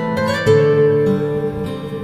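Background music: acoustic guitar played in plucked notes and strums.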